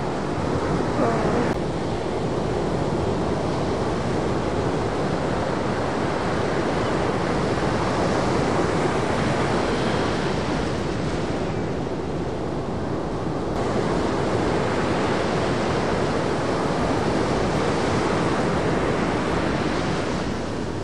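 Ocean surf breaking at a beach, a steady rush of wave noise with wind on the microphone. The hiss shifts abruptly a couple of times.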